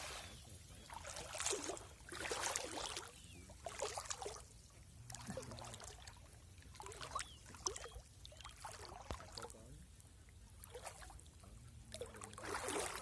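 Water splashing and trickling in a series of short bursts about every second or so.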